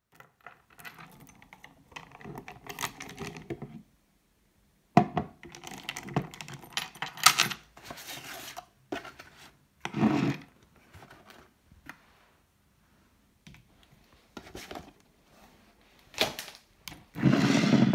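Metal chain handle of a Marc Jacobs Decadence perfume bottle jangling in irregular bursts as the bottle is handled, with sharp knocks as it is moved about and set down on the table.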